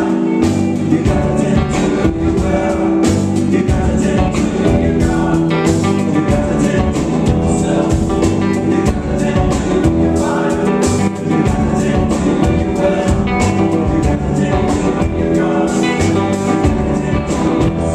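Live band playing loud music, with electric guitar and electric bass over a drum beat.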